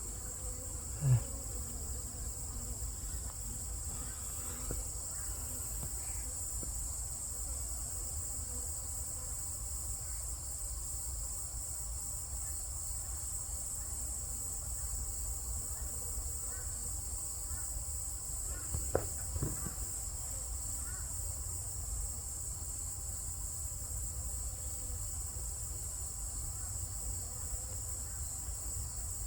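A steady, high-pitched insect chorus, with native Asian honeybees buzzing around their hive and a couple of brief louder buzzes passing close, about a second in and again near the middle.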